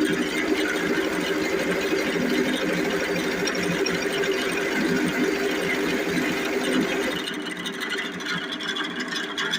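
Metal lathe running while cutting valve reliefs into a Yamaha Vixion piston, a steady machining whir and chatter. About seven seconds in, the sound thins and drops a little, losing its low rumble.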